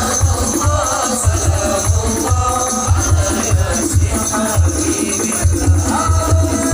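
Sholawat music: voices singing devotional praise of the Prophet over a steady beat of hand-played frame drums (rebana) with jingling tambourine-like percussion.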